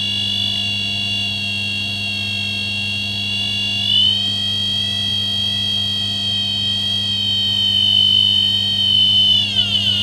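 Built-in buzzer of a DIY low-frequency magnetic field detector sounding a steady high electronic tone while held inside a microwave oven cavity, signalling a magnetic field there. The tone steps up a little in pitch about four seconds in and slides down at the end, over a low steady hum.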